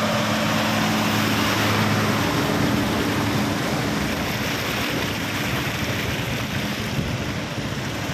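Trucks driving through floodwater over a road: a steady rush and splash of water from their wheels, with the low hum of the truck engines, strongest in the first few seconds.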